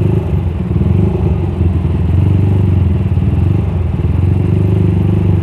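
Single-cylinder four-stroke engine of a 200cc Suzuki Satria FU running steadily at low revs in slow stop-and-go traffic, with other motorcycles' engines around it.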